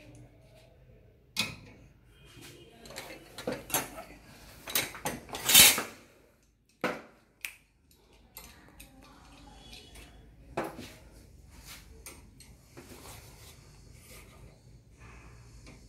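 Stainless steel surgical retractor blades and clamps clanking and clicking against the metal frame as they are handled and fitted. There is a quick run of sharp metal knocks in the first half, the loudest about five and a half seconds in, then a few scattered clicks later.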